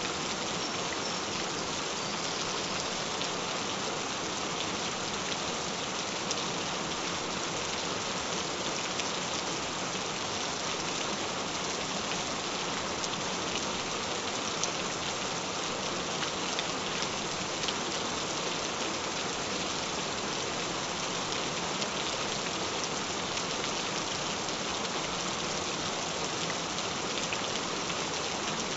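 Gentle rain falling steadily: an even hiss of rain with many small drop ticks, unchanging throughout.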